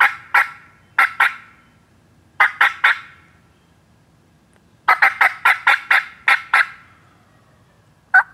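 Eastern wild turkey gobbler calling in loud, short bursts of rapid notes, the longest a run of about eight notes midway through; a gobble starts just before the end.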